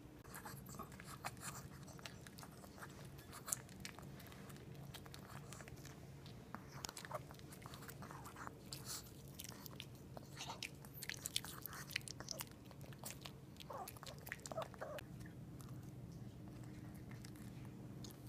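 Chihuahua chewing chicken off a plate up close: quick, irregular smacking and crunching clicks, over a steady low hum.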